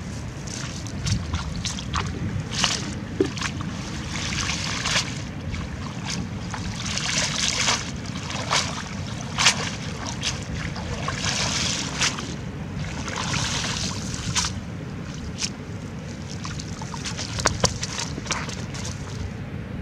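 A live tilapia flopping on dry grass out of the water: irregular sharp slaps of its body on the ground and short bursts of rustling dry grass, a few seconds apart, over a steady low rumble.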